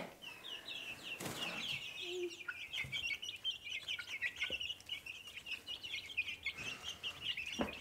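A brood of young chicks peeping continuously: many short, high chirps overlapping one another.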